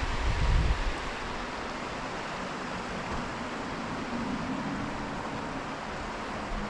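Steady rushing of water from the waterfalls and stream, with a brief low rumble in the first second.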